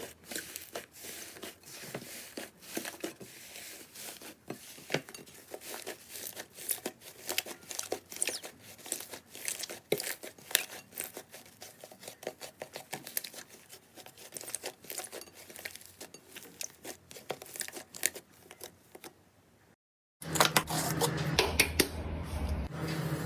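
Slime being squeezed and worked by hand, making dense, irregular crackling and popping clicks. About twenty seconds in, the sound drops out briefly and cuts to a louder clip of crackling slime with a low steady hum beneath it.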